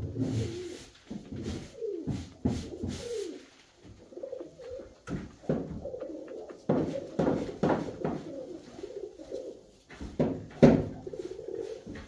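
Alföldi-Körösi tumbler pigeons cooing over and over, with a few sharp clicks and knocks among the calls; the loudest knock comes a little before the end.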